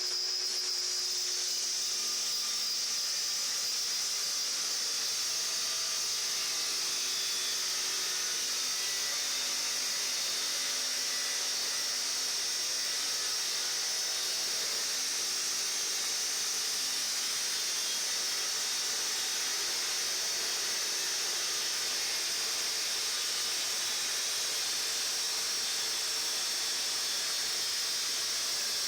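Abrasive chop saw cutting through a metal gate: a steady high hiss of the wheel grinding through the metal.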